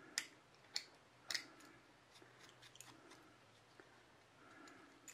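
Handheld swivel-blade deburring tool scraping the sharp edges off a cured epoxy resin piece: three short, sharp scrapes in the first second and a half, then fainter scratching.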